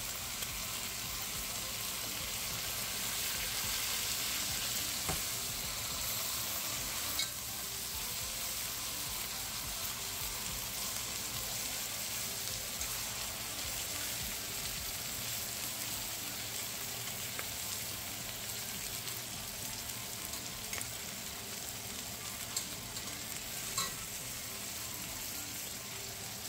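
Chuck eye steak sizzling in a hot pan with garlic, herbs and freshly added butter melting in: a steady frying hiss with a few sharp little pops and spatters.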